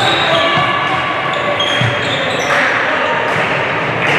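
Floorball match play in a sports hall: players' shoes squeaking in short high chirps on the court floor, with voices echoing in the hall.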